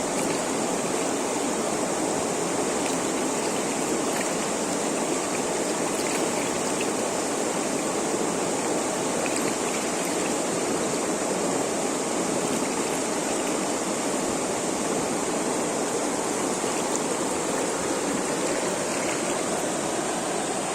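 A river rushing over a small waterfall, a steady full rush of water.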